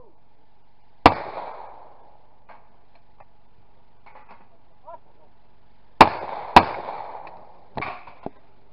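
Shotgun shots at a clay-pigeon range, each with a long echoing tail: one about a second in, then a double near the end, two shots about half a second apart. Two sharper, smaller clacks follow as the over-under shotgun is broken open.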